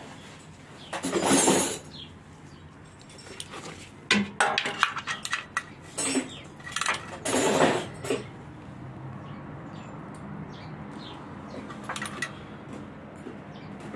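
Metal hand tools clinking and a socket ratchet clicking as the engine-oil drain plug is refitted and wrenched tight, with irregular sharp clicks and a few louder clattering bursts.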